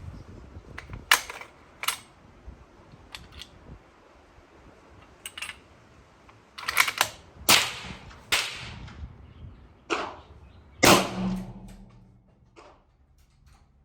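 Suppressed .30-06 rifle fired, three shots spread over several seconds, with smaller sharp clicks and knocks in between.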